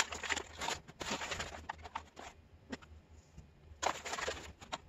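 Rustling of a paper flour bag and scraping of a measuring cup scooping flour out of it to tip into a mesh sieve, in three short bouts of crinkly scrapes.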